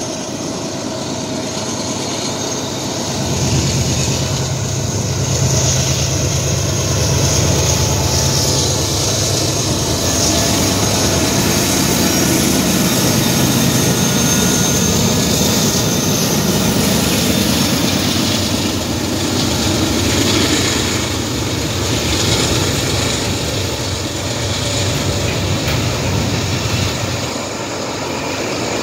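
Norfolk Southern diesel locomotives, including the Norfolk & Western heritage GE ES44AC 8103, passing at track speed on a freight train: a low engine drone swells in about three seconds in and holds, then eases near the end as the freight cars roll by.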